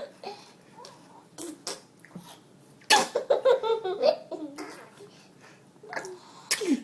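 A young child's mock sneeze: a sudden loud burst about three seconds in that runs into about a second of drawn-out voice, mimicking an adult's sneeze. A few short, softer vocal noises come before and after it.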